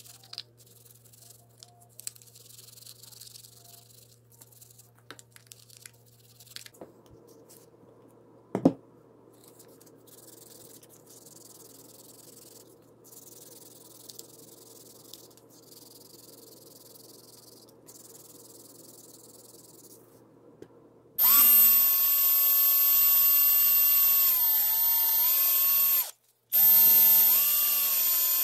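Power drill spinning a foam polishing pad against a clear plastic part. It runs steadily for about five seconds, its pitch sagging briefly under load, stops for a moment, then runs again for about three seconds. Before it come faint scrubbing and handling sounds and one sharp knock.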